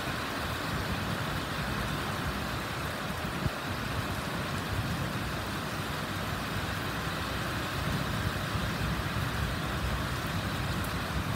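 Steady low rumble with a hiss of distant road traffic, with a small tap about three and a half seconds in.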